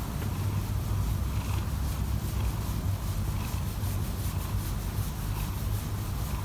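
Domestic cat purring steadily, a continuous low fluttering rumble, as its chin is scratched, with a soft rubbing of fingers on fur.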